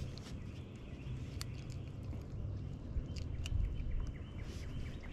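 Faint bird chirping in quick repeated notes over a low rumble, with a few sharp clicks.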